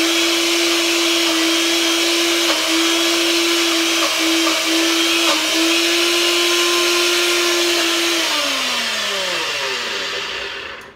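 NutriBullet blender motor running at a steady pitch, blending frozen fruit, açaí packs and water. About eight seconds in it winds down, the pitch falling as the motor coasts to a stop near the end.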